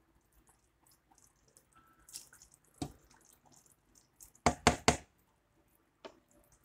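Kofta in tomato sauce simmering with faint bubbling in a steel pot, while a plastic spatula stirs and knocks against the pot: one knock a little before the middle, then three quick sharp knocks, the loudest sounds.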